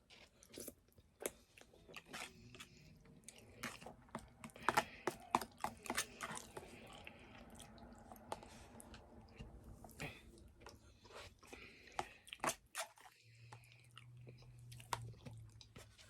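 Close-miked chewing of spaghetti with meat sauce: irregular wet mouth clicks, busiest in the middle.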